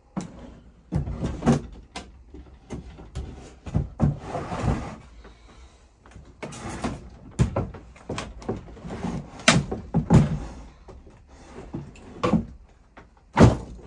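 Wooden model railway baseboard sections being handled and fitted into place: an irregular run of knocks and thuds as the timber boards bump together, with a scraping slide about four seconds in and the sharpest knock near the end.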